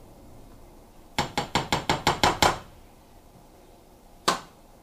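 A spatula tapped against the rim of a stainless steel skillet, about eight quick knocks in a row, knocking sauce off it; near the end one more knock as the spatula is set down on the stovetop.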